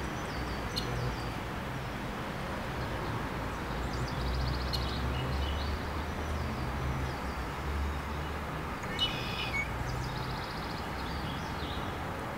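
Small birds chirping, with short rapid calls repeated several times, over a steady low background rumble.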